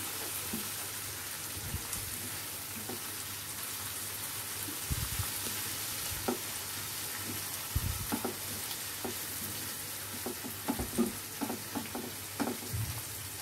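Onion and tomato masala sizzling in oil in a non-stick kadai while a silicone spatula stirs it, scraping and tapping against the pan. The taps come more often in the second half.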